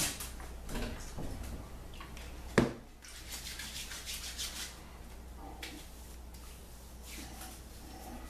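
Thayer's witch hazel being splashed into the hands and rubbed and patted onto a freshly shaved face, with a sharp knock about two and a half seconds in and quick wet rubbing just after.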